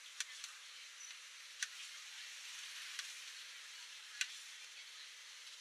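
Kitchen knife slicing a cucumber over a plate, giving about five sharp, irregular clicks over a steady hiss.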